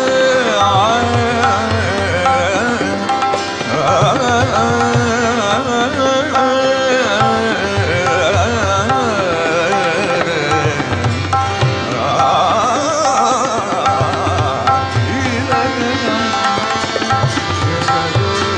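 Indian classical singing by a man, the melody sliding and ornamented, with tabla strokes and a steady tanpura drone underneath.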